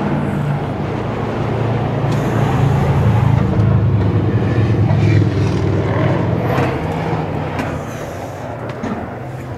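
A large engine running steadily at idle, a constant low hum, with a few light knocks over it.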